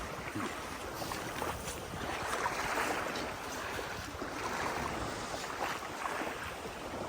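Wind on the microphone and small lake waves lapping, a steady washing noise that swells and eases.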